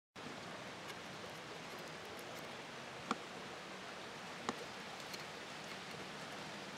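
Steady outdoor background hiss that cuts in abruptly from silence, with a few sharp ticks, the loudest about three seconds in and another about a second and a half later.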